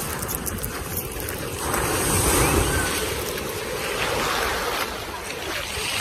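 Small waves breaking and washing up a shingle beach: a steady surf hiss that grows louder about two seconds in, with wind rumbling on the microphone.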